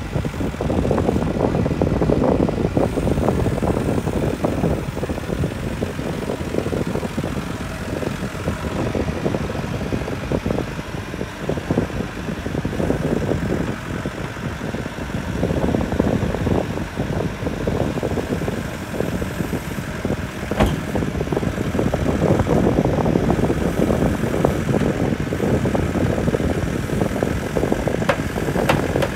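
Small tracked excavator's diesel engine running hard under load while it claws itself through deep mud with its bucket and tracks, the engine note swelling and easing. A single sharp knock about two-thirds of the way through.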